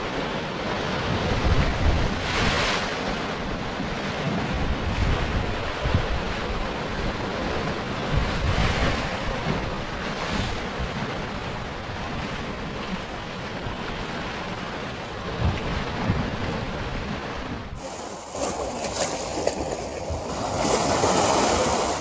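Sea waves washing in and breaking in a steady rush, swelling now and then. About 18 s in the sound changes suddenly to a different, closer recording of rushing water.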